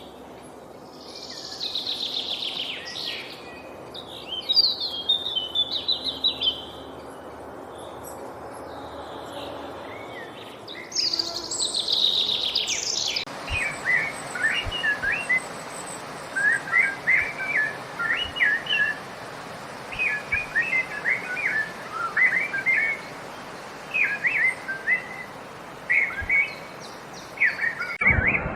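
Birds calling in a forest: high, sweeping calls over the first half. About halfway through, the sound shifts to a bird repeating short, chirpy warbled phrases every second or two.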